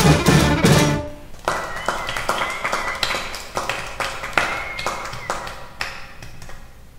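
Gypsy-punk fiddle band music ends about a second in. Scattered sharp taps and a few faint high notes follow, fading away.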